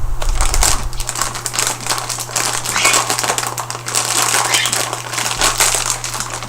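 Crinkly plastic snack packaging, a bag of chocolate-covered gingerbread, rustling and crackling as it is handled: a dense, irregular run of small crackles.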